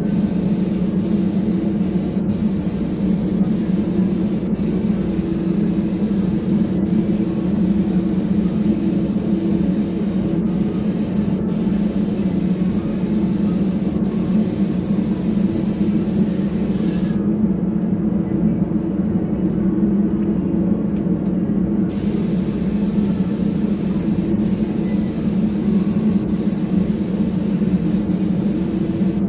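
Gravity-feed spray gun hissing as it sprays a base coat of paint, the hiss stopping for about five seconds roughly two-thirds of the way through and then resuming. A steady low machine hum runs underneath.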